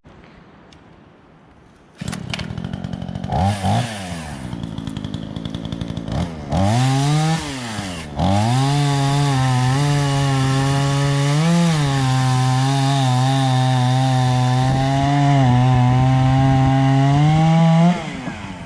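Craftsman two-stroke 46cc chainsaw with a 20-inch bar, quiet at first, then throttled up about two seconds in and revved a couple of times. It is then held at a steady high speed for about ten seconds, cutting wood, and the throttle is released near the end.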